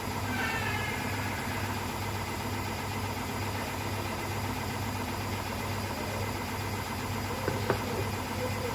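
A steady low machine hum, with a few light knocks near the end.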